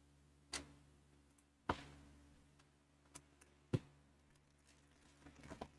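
Soft clicks and taps of trading cards and a card pack being handled: about half a dozen scattered sounds, with a small cluster near the end. A low steady fan hum runs underneath.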